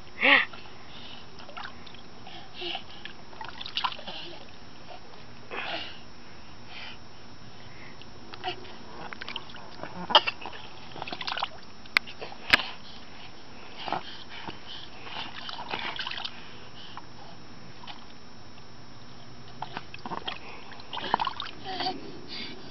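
Pool water splashing and sloshing in short, irregular splashes spread throughout.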